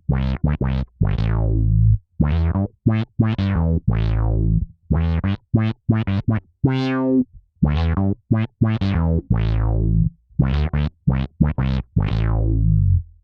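Fender Jazz bass played through a Source Audio C4 Synth pedal, a phrase of separate synth-bass notes, some short and staccato, some held, each opening bright and quickly darkening as a filter closes. The phrase stops abruptly just before the end.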